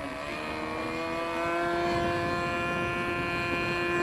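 Radio-controlled flying lawnmower model aircraft, its motor and propeller droning overhead. The pitch rises slightly in the first second as it gets louder, then holds steady.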